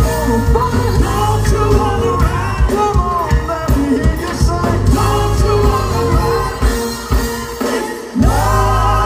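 Live soul band and vocal group performing, with singing over bass, drums, guitars and keyboards. The music drops briefly near the end, then the band comes back in with held notes.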